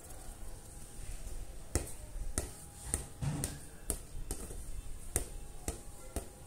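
A string of about nine sharp, irregular taps, roughly half a second apart, as a toddler plays barefoot with a plastic ball on a concrete surface.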